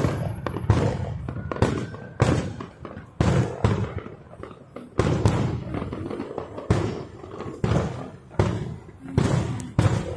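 Aerial fireworks bursting in a rapid, irregular run of booms, about one or two a second.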